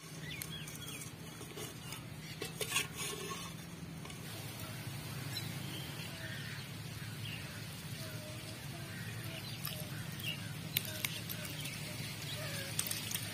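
Light clinks of a steel spoon and an aluminium pot as curdled milk is stirred and poured off, sharpest about two and a half seconds in and near eleven seconds, over a steady low hum. Small birds chirp repeatedly in the background.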